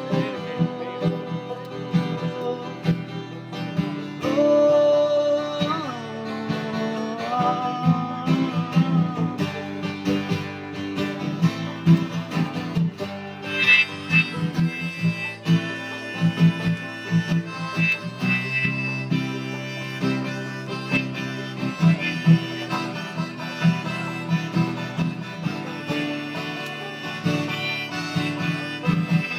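Acoustic guitar and banjo playing a country-bluegrass tune live, with a steady strummed and picked rhythm; a sliding held melody line rises over it about four seconds in and fades out near the ten-second mark.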